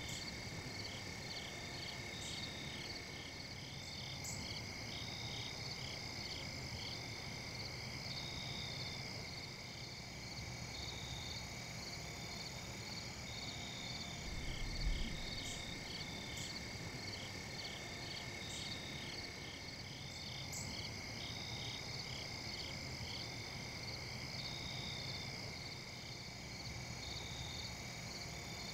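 Insect chorus: a steady high cricket-like trill with short chirps repeating over it. There is a brief low bump about halfway through.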